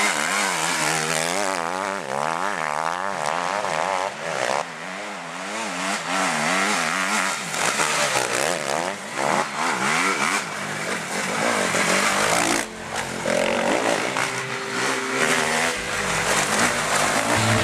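Honda enduro motorcycle engine revving hard and easing off again and again, its pitch rising and falling about once or twice a second as it is ridden over bumpy dirt, then running more evenly later on.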